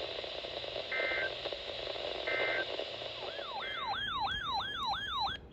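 Weather radio hiss with three short two-tone data bursts, the SAME digital header that opens a NOAA Weather Radio alert. A loud siren-like warbling alarm tone follows, sweeping up and down about three times a second, then cuts off suddenly.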